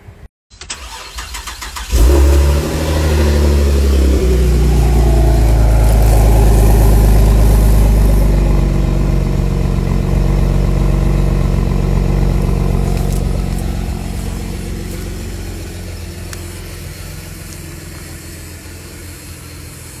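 Chevrolet Camaro engine starting with a sudden loud flare about two seconds in, then settling into a steady idle that slowly quietens.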